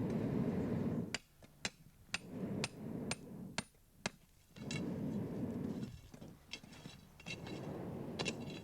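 Iron tools striking the clay and slag of a smelting furnace being broken open: a run of sharp, clinking blows about two a second, then a few more later. Between the blows are stretches of rough, low scraping noise.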